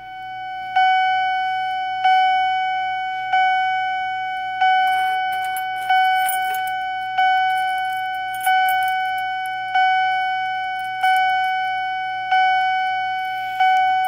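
Wheelock CH-DF1-WS-24 fire alarm chime sounding in alarm after a manual pull station is pulled: its striker hits a single ringing tone about once every 1.3 seconds, each strike sharp and then fading away.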